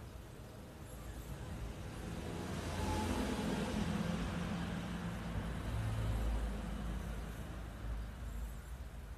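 A road vehicle passing by: engine rumble and road noise swell over a few seconds and then fade away.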